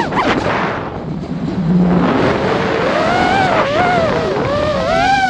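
FPV quadcopter's electric motors and propellers whining. The pitch drops away sharply at the start, a rushing of air fills the next couple of seconds, then the whine comes back and rises and falls with the throttle.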